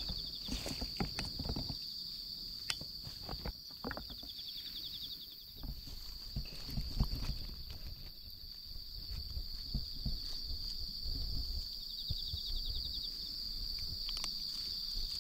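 Insects chirring steadily at a high pitch, with short pulsed trills a couple of times, under scattered clicks and low thumps.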